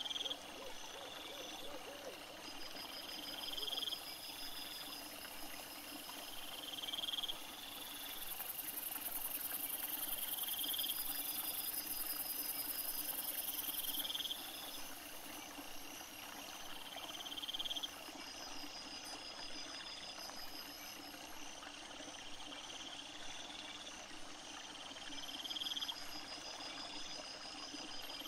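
Night insects chirping: a short rising trill repeats about every three and a half seconds over a steady high-pitched buzz that swells in the middle and then drops back.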